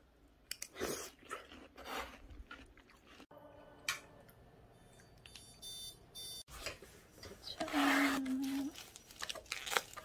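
Watermelon being eaten: wet biting and chewing strokes. After the picture cuts, a short steady-pitched sound about eight seconds in is the loudest event.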